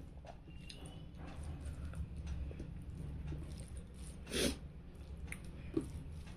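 Mouth sounds of someone eating rice and fish curry by hand: chewing with a few short smacks, the loudest about four and a half seconds in, over a steady low hum.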